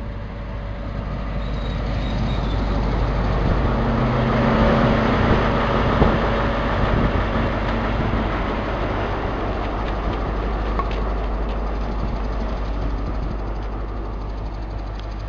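High Speed Train with a Class 43 diesel power car running into the platform. Engine drone and wheel rumble swell as the power car passes about four to six seconds in, with one sharp knock near the peak. The sound then eases to a steady engine hum as the train draws to a stand.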